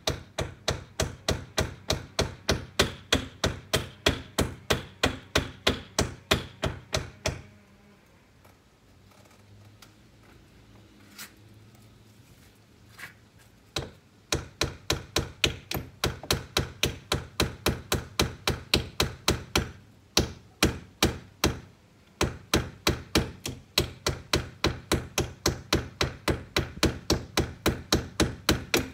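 Hammer driving nails into a window frame to fix it in place: steady, evenly spaced strikes about three a second. The hammering stops for about six seconds near the middle, with only a couple of lone knocks, then picks up again with one short break.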